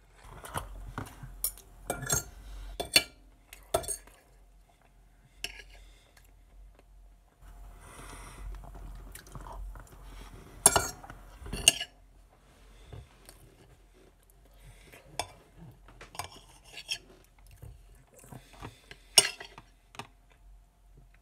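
A metal spoon clinking and scraping against a plate in irregular sharp clinks, with chewing of soft baked potato and asparagus in between.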